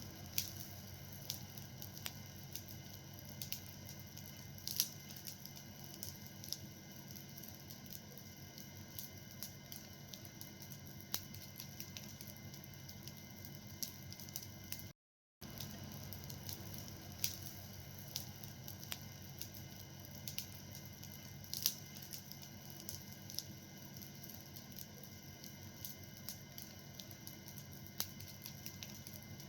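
A fire burning with a steady low hiss and irregular sharp crackles and pops, broken by a moment of silence about halfway through.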